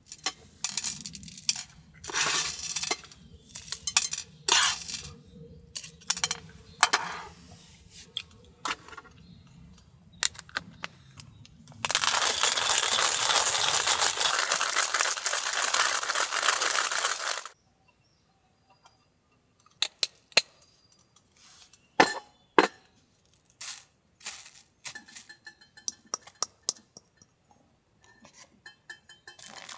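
Tableware and cookware clinking and tapping at a camp breakfast: many short knocks and clinks, with a steady hiss lasting about five seconds midway through.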